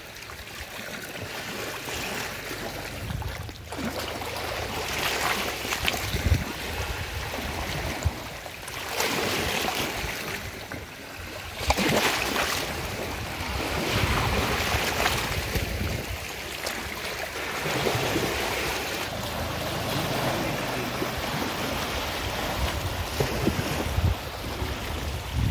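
Muddy Ganga floodwater washing and lapping against an earth riverbank, swelling and easing in irregular surges, with wind buffeting the microphone.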